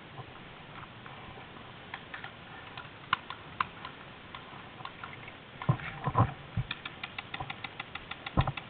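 Paintball markers firing, with scattered single pops at first, then from a little past the middle a fast, even string of shots at about seven a second. A few heavier dull thumps come just before the string and again near the end.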